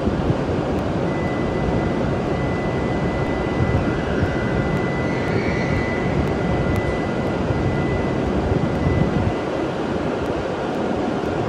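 E7/W7 series Shinkansen standing at the platform with its onboard equipment running: a steady rushing hum. A thin, high, steady tone sounds over it from about a second in until near the end.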